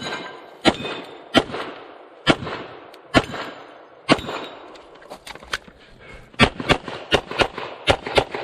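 Glock 34 9mm pistol fired in a rapid string of single shots about a second apart, then faster groups of shots in the second half. Steel targets ring faintly after the first shots.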